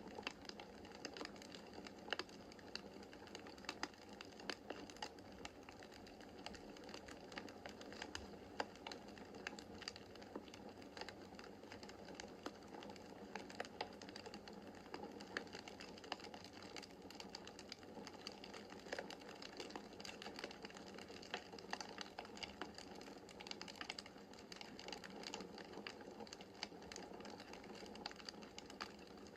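Wood fire crackling in a fireplace: a steady soft hiss of flames with many irregular small pops and snaps from the burning logs.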